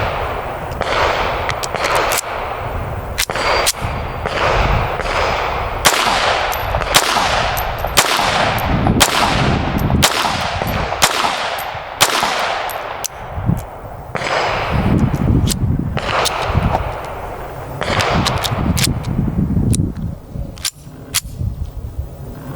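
Langenhan .32 ACP pistol being fired, shot after shot, each crack followed by a long echoing tail, with sharper, fainter cracks in between.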